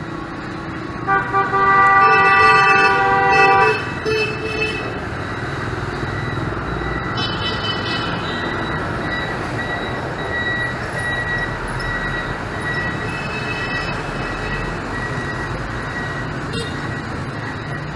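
Busy motorbike and car traffic at a street intersection, with vehicle horns. Two short toots come about a second in, then a long horn blast runs to about four seconds, with a few more quick toots. Fainter horns sound twice later, over a steady hum of engines.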